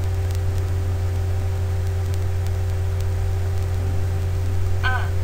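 Steady low electrical hum with a constant hiss: the recording's background noise. A very short voice sound comes near the end.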